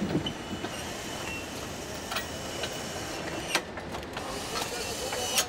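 Car assembly-line factory floor: a steady machinery hum under a faint high whine, broken by sharp clicks and clanks of tools and parts, the clearest about two, three and a half and five seconds in.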